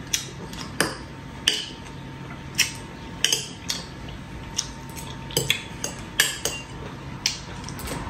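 Metal fork and knife clinking and scraping against a ceramic bowl as the last of the spaghetti and tomato sauce is gathered up: sharp, irregular clinks roughly once or twice a second.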